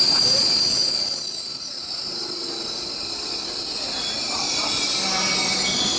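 Electric passenger train rolling along the platform, its wheels squealing in a high tone that fades about a second in, then steady rolling noise with fainter squeals near the end.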